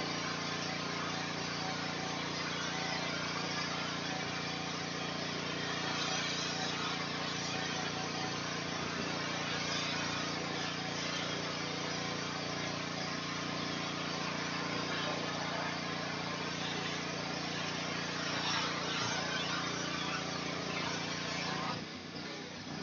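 Pressure washer running steadily, its motor droning under the hiss of the high-pressure spray on a building wall. The spray sound drops away near the end.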